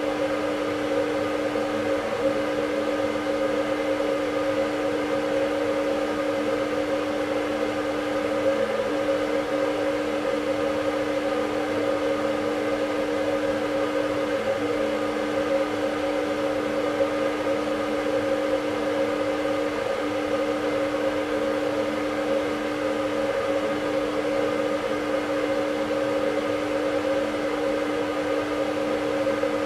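Fluorescent ceiling light fitting humming and buzzing steadily, a single steady tone with a rougher buzz above it.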